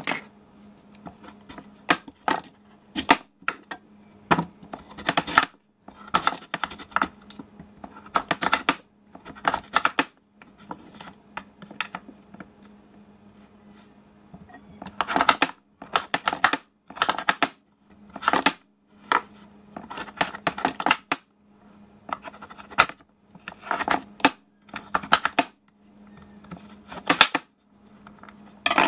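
Kitchen knife cutting a raw sweet potato on a wooden board: irregular knocks and scrapes in clusters as the blade slices through and strikes the wood. A faint steady hum lies underneath.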